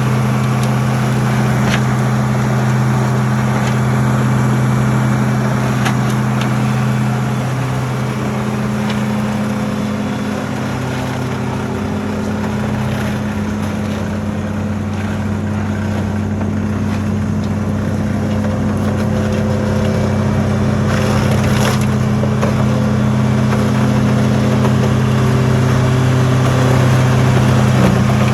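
2003 Morbark 950 tub grinder's diesel engine running steadily, its pitch shifting slightly a couple of times, with a few faint clicks over it.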